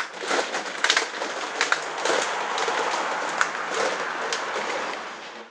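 A large sphere built from plastic baskets rolling over asphalt: a steady rough clatter with irregular sharp clicks, fading out near the end.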